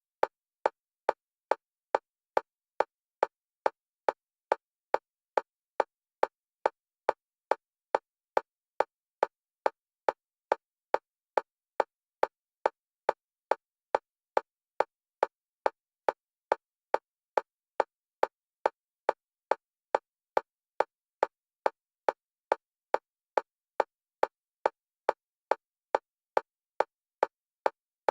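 Synthetic metronome clicks, even and fast at about two a second, alternating between the left and right stereo channels: an EMDR bilateral-stimulation track.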